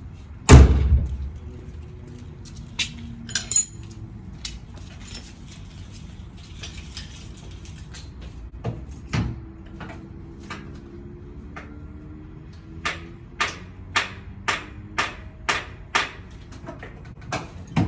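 A heavy thump about half a second in, a few scattered knocks, then near the end a run of about eight sharp metallic taps, about two a second: a hammer striking a Mazda Miata's starter motor, the old trick for a starter that won't turn the engine over.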